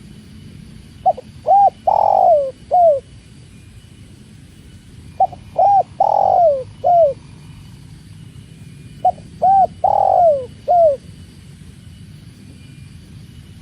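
Spotted dove (tekukur) cooing: three song phrases about four seconds apart. Each phrase is a quick run of arched coos with one longer, falling coo in the middle.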